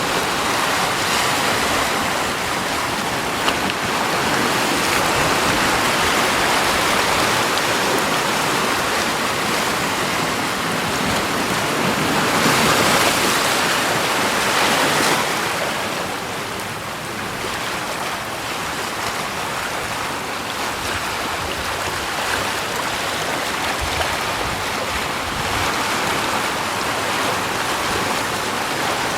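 Steady rush of flowing water, a continuous hiss that grows a little louder for a few seconds about halfway through.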